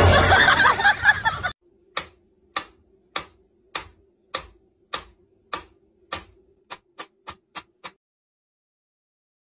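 A loud, harsh burst of noise for the first second and a half. Then a mechanical pendulum metronome ticking evenly, about every 0.6 s, with the ticks coming faster near the end before stopping.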